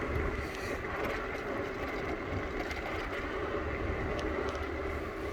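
Bird electric rental scooter being ridden, heard from a phone in a shirt pocket: a steady low rumble of the wheels on the pavement with a faint, even motor whine and a few light ticks.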